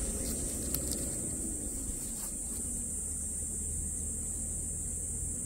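Steady high-pitched insect drone over a low, even rumble.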